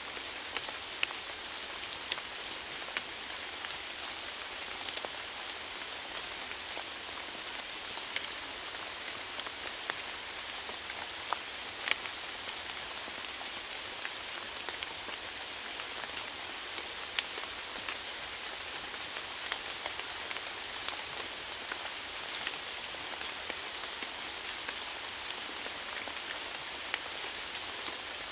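Steady rainfall hiss with individual raindrops ticking sharply on a surface, scattered irregularly, one louder drop about twelve seconds in.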